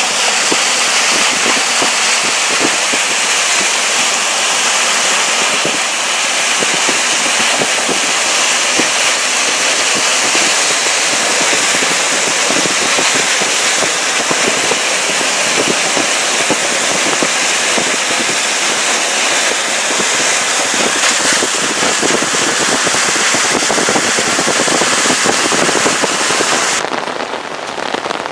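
Heavy rain pelting a moving vehicle, a dense steady patter of drops mixed with hiss from the wet road. About a second before the end it changes to softer, steadier rain falling outdoors.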